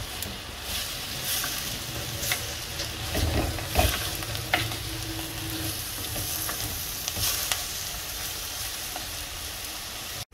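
Ponnanganni greens sizzling in oil in a clay pot as they are stirred and tossed with a wooden spatula, with a steady sizzle and scattered scrapes and knocks against the pot that are loudest a few seconds in.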